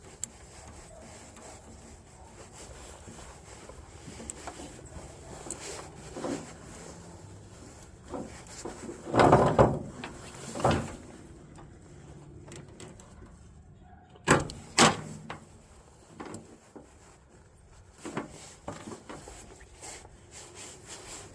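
Hands working a jumper cable end and its connector: scattered rustling and small knocks as the wire strands are folded over and the lug fitted, with the loudest handling noise about nine to eleven seconds in and two sharp clicks about fourteen and a half seconds in.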